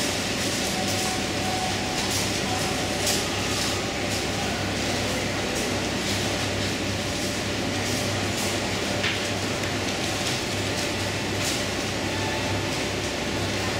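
Supermarket ambience: a steady low hum and hiss with scattered light clicks and rattles.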